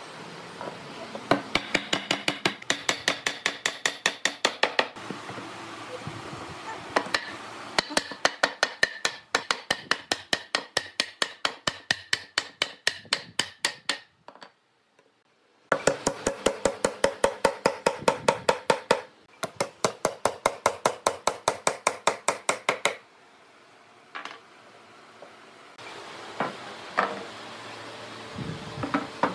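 Hand saw cutting through a pine strip with quick, even strokes, about five a second, in several runs broken by short pauses.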